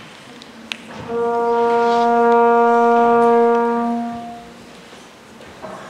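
A single sustained musical note, brass-like in tone, held at a steady pitch with many strong overtones. It starts abruptly about a second in and dies away after about three seconds, with a short click just before it begins.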